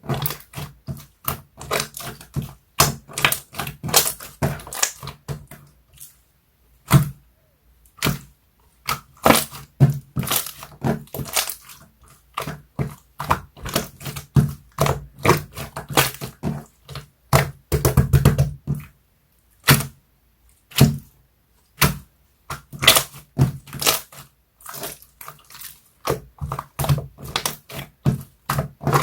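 Slime being squeezed, stretched and poked by hand, making runs of quick wet clicks and popping air bubbles, with short pauses between handfuls.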